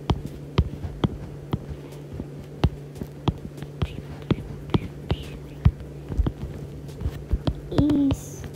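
Stylus tip tapping and clicking on a tablet's glass screen while drawing, in irregular taps several a second, over a steady low hum.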